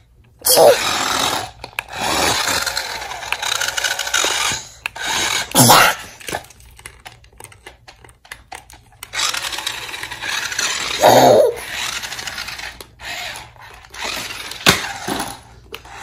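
Toy stunt remote-control car's small electric motors whirring in stretches of several seconds as its wheels spin freely while the car is held up off the floor, with a few short cries from a toddler and a couple of sharp plastic clicks near the end.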